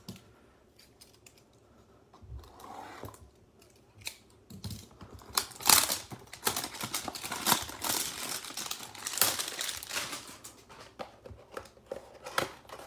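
A cardboard trading-card hanger box being opened and handled: crackling, crinkling and clicking of the cardboard flaps and the wrapped card stack, thickest from about five seconds in.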